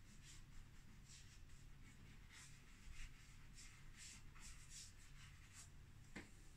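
Chalk pastel scratching faintly across the painting surface in short, repeated strokes, with a light tap about six seconds in.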